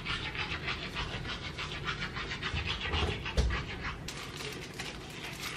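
Hand-held hair dryer blowing, its airy hiss wavering as it is moved around the hair, with a couple of soft bumps about three seconds in.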